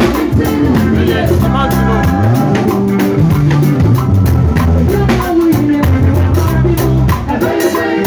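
Live band playing an upbeat Ghanaian gospel groove: a drum kit driven hard with busy cymbals, and an electric bass guitar walking through stepped low notes, with a voice singing over it.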